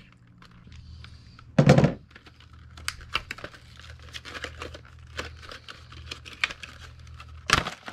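Clear plastic packaging of a pair of new motorcycle hand grips being cut with a box cutter and pulled open, with crinkling and crackling plastic throughout. There is a loud rip about a second and a half in and another near the end.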